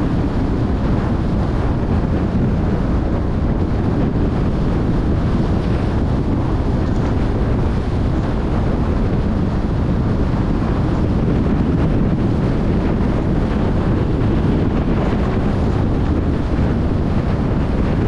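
Steady rushing wind and road noise from a car being driven, with no changes or separate events.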